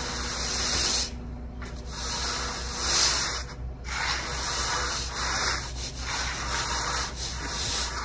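Hand tools scraping and rubbing over wet concrete in repeated strokes a second or two long, as a fresh slab is worked by hand along its edges.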